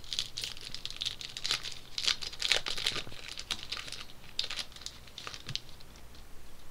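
A trading-card pack wrapper being torn open and crinkled by hand: a quick run of sharp crackles that thins out and stops near the end.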